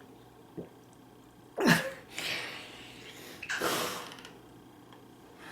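Two sudden, forceful bursts of breath from a person, sneeze-like, about two seconds apart; the first is loud and sharp, and each trails off into a breathy exhale.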